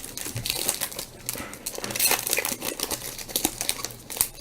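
Crinkling and crackling of a 1998 Bowman Chrome Football trading card pack wrapper, handled and opened by hand, in irregular rustles.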